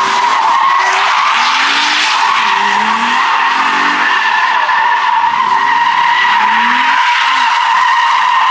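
Car tyres squealing continuously in one steady, high screech, as a car is driven sliding without a break.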